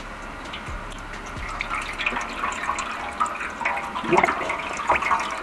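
Used automatic transmission fluid pouring from a hose and splashing into a waste-oil drain funnel, growing louder and more uneven about two seconds in. This is the first flush of a full fluid change on a GM 6T30/6T40 six-speed automatic, with old fluid being pumped out.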